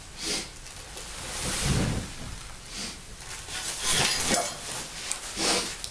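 An eagle flapping its wings in several short whooshing bursts as it moves from a gloved fist onto a perch, with rustling of the handler's jacket.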